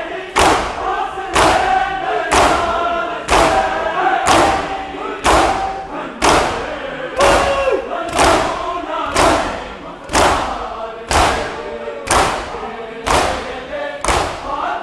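A large crowd of men beating their chests in unison (matam), about one loud slap a second, each echoing in a big hall. Between strikes the crowd chants a noha lament together.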